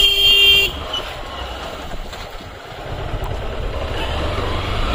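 A vehicle horn beeps once, a loud single honk of about half a second, over the steady low running noise of a motorcycle being ridden on a rough road.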